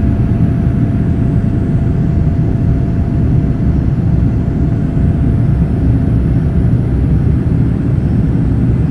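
Steady rumble of a Boeing 787-9's jet engines and airflow, heard inside the cabin.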